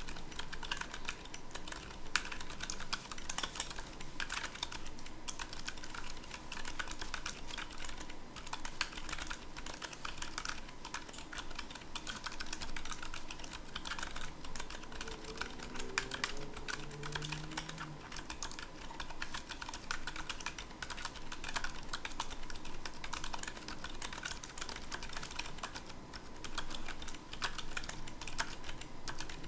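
Typing on an Epomaker GK68XS mechanical keyboard fitted with 68g Gazzew Boba U4 silent tactile switches lubed with Krytox 205g0. The keystrokes come in a steady, unbroken run.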